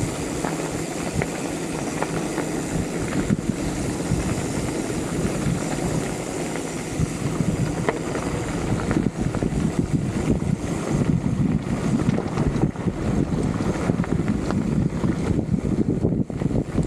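Wind buffeting the microphone while on the move, a dense low rumble that turns gustier about halfway through, over a faint steady hum in the first few seconds.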